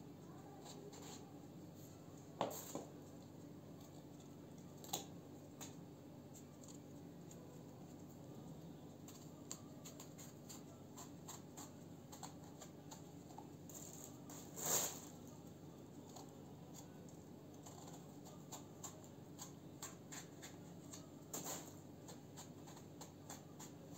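Kitchen knife peeling strips of skin off an eggplant: faint, scattered scraping and cutting sounds with a few soft clicks, the loudest about fifteen seconds in, over a low steady hum.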